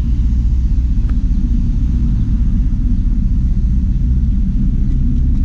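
Diesel engine of a Class 73 electro-diesel locomotive running with a steady low rumble as the locomotive comes in.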